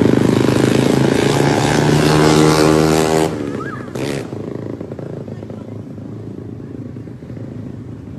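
Loud engine of a vehicle with an open, unmuffled exhaust (escape libre) passing close by, its note rising as it revs, then cutting off sharply after about three seconds. Quieter street noise follows.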